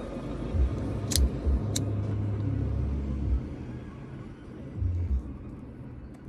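A cigarette lighter being flicked, two sharp clicks about a second in, over a steady low rumble with a few dull thumps.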